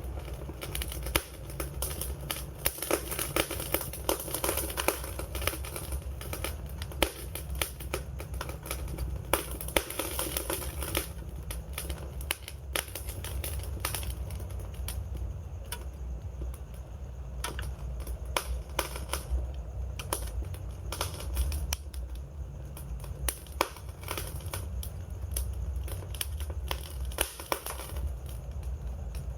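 Wood fire crackling and popping, with many sharp snaps over a steady low rumble of the flames; the crackling is busiest in the first third and thins out after that.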